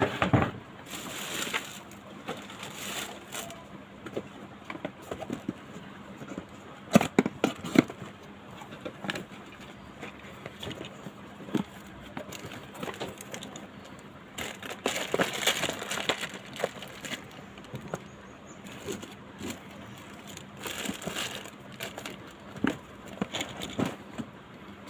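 Hands handling parts on a workbench: a cardboard parts box and small plastic bags of components rustling, with scattered clicks and taps in irregular bursts.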